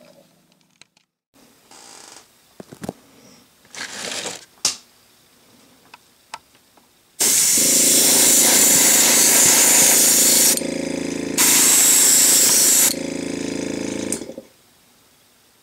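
An airbrush compressor starts about halfway in and runs for about seven seconds with a steady hum, while the airbrush hisses in two long blasts of air with a short pause between them, spraying paint onto a plastic model. Before it, a few quiet rustles and clicks of hands working at the model.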